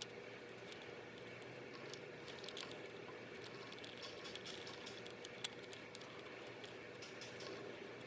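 Light, irregular clicks and ticks of small parts and tools being handled while a compact digital camera is taken apart for repair, over a steady faint hum.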